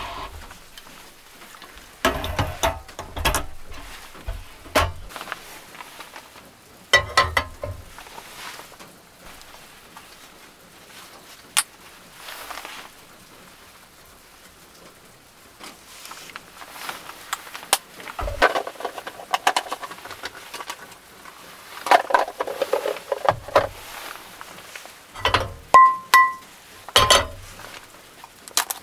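Cooking gear handled on a cassette gas stove: a steel frying pan and the stove clicking and knocking, with soft clatter in between and a couple of short metallic rings near the end.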